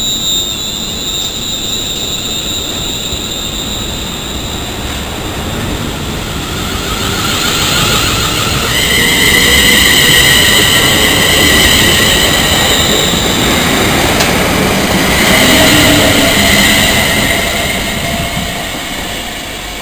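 Greater Anglia electric multiple-unit train running past the platform, a steady rumble of wheels on rails. High wavering squealing tones join in about a third of the way through. It is loudest around the middle and fades as the train clears the station near the end.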